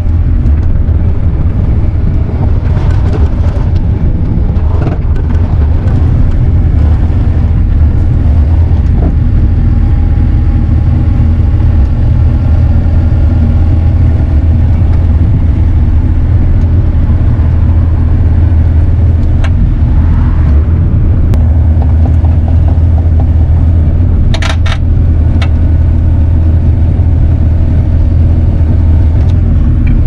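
Bobcat mini excavator's diesel engine running steadily, heard from inside the operator's cab while the machine moves an old motor home. A few short, sharp knocks come about 24 seconds in.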